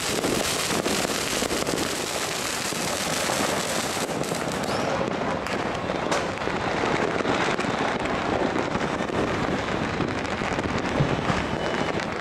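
New Year's firecrackers and fireworks going off without a break: many small pops running together into a steady crackle, with a sharper bang about eleven seconds in.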